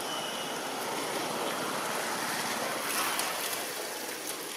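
Steady rushing outdoor background noise with no distinct event, swelling briefly about three seconds in.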